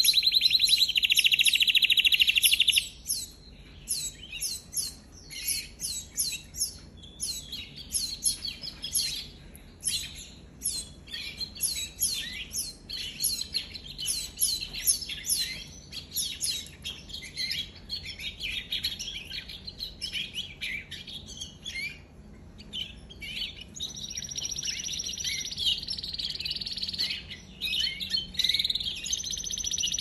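Domestic canary singing. It opens with a loud, fast rolling trill for about three seconds, then a long run of quick, sharp chirps and whistled notes, and rolls into sustained trills again near the end.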